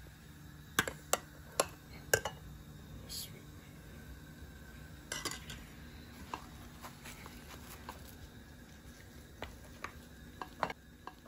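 A spoon clinking against bowls as dal is served: a few sharp clinks in the first two seconds, another cluster about five seconds in, and lighter taps near the end.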